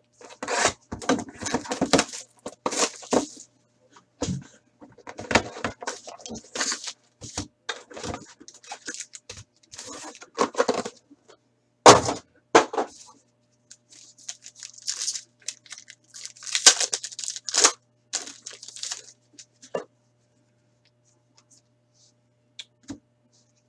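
A Titanium hockey card box being torn open and its packs ripped open: repeated tearing and crinkling of cardboard and pack wrappers with scattered knocks, the loudest a sharp snap about twelve seconds in. It dies down about twenty seconds in.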